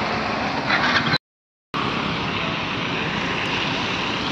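Steady drone of a Hydra crane's diesel engine working under load as it hoists a waterlogged car. The sound cuts out completely for about half a second just over a second in, then resumes unchanged.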